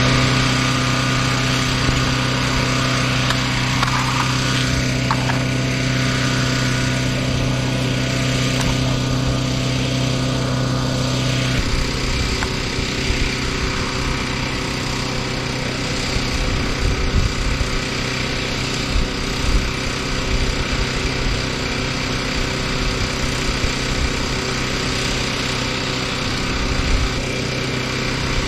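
Small single-cylinder engine of a portable dual-fuel generator, running steadily on gasoline. Its running note shifts abruptly about twelve seconds in, then holds steady again.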